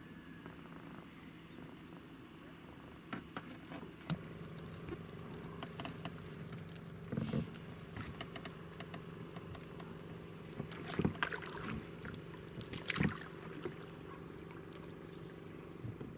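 Knocks and clunks of gear against a small boat, loudest about 7, 11 and 13 seconds in, over a steady low hum.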